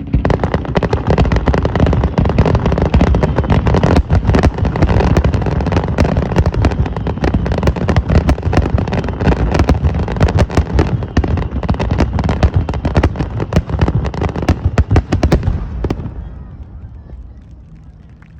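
Fireworks going off in a rapid, continuous barrage of bangs and crackles, dying away about two seconds before the end.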